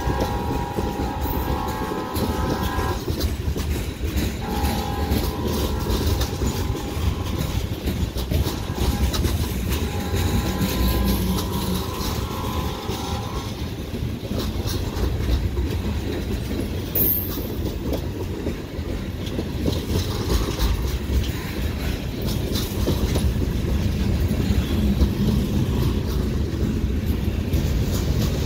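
Freight cars rolling past with a steady rumble and wheel clatter. In the first half, a locomotive horn farther up the train sounds three long blasts.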